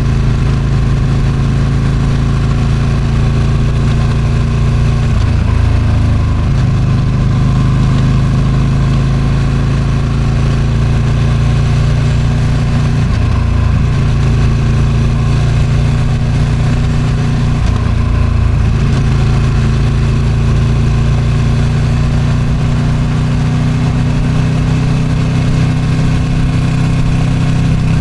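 Ducati Streetfighter V2's 955 cc V-twin on its stock exhaust, running steadily under way with wind rushing over the microphone. Its pitch drops and changes briefly a few times, about a third and halfway through and again a little later, then rises slowly near the end.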